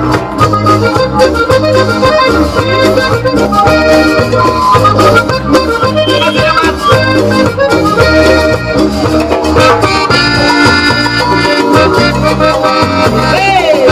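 Live cumbia band playing an instrumental break between sung lines: a melody line over a steady, repeating bass and percussion beat.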